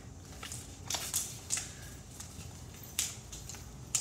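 A person's footfalls and shoe scuffs on a floor while galloping: a handful of short, irregular scuffs and taps.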